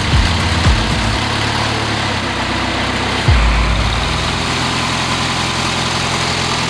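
The Avid Flyer light aircraft's engine running steadily under a broad hiss, with a brief low thump about three seconds in.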